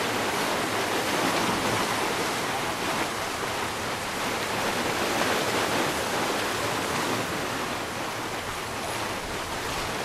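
Mediterranean sea surf washing over and around shoreline rocks: a steady rushing of water with small rises and falls as the waves come in.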